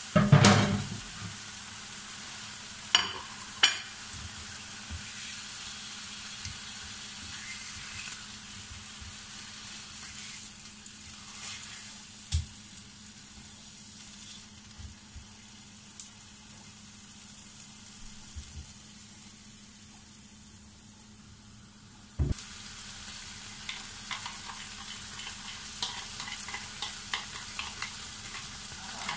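Thin slices of pork sizzling in a frying pan over a gas flame. A loud clatter comes just after the start, with a few sharp clicks and knocks later, and the sizzle gets louder after a knock about two-thirds of the way through.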